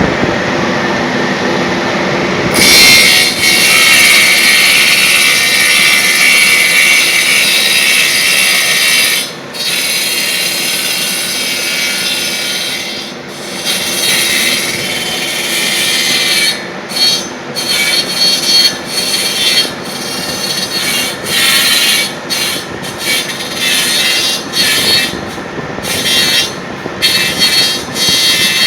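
Wood copy lathe running, its cutter turning a wooden baluster: a steady machine hum, then about three seconds in a loud hissing cutting noise as the cutter bites into the wood. In the second half the cutting breaks off and resumes again and again.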